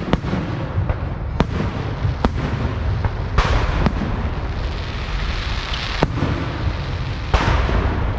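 Fireworks going off: repeated sharp bangs over a steady low rumble, with crackling bursts about three seconds in and again near the end.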